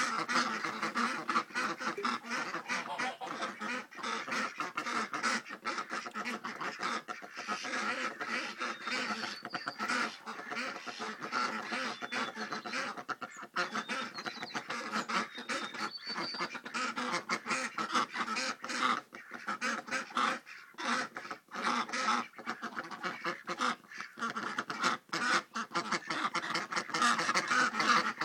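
A flock of Indian Runner ducks quacking continuously, many birds calling over one another.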